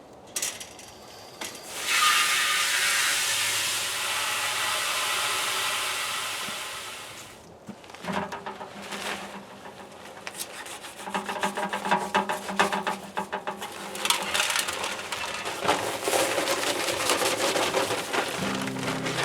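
Dry bagged concrete mix poured into a concrete mixer, a rushing hiss for about five seconds that fades out, followed by gritty scraping and rattling as the mix tumbles in the drum.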